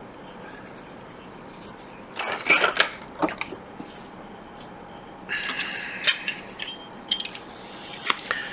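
Small metal hand tools clinking and clattering as they are handled and set down on the workbench: one burst of clatter about two seconds in, another around five to six seconds, then a few lighter ticks.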